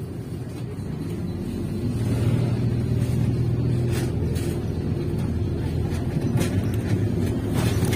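MAZ-203 city bus driving, heard from inside the passenger cabin: a steady low rumble of the drive and the road, with a hum that grows louder about two seconds in and a few faint knocks.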